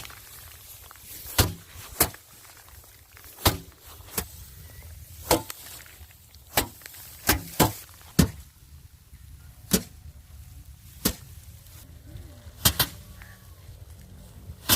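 Rice bundles being beaten by hand to thresh out the grain, striking in sharp cracks about once a second at an uneven pace.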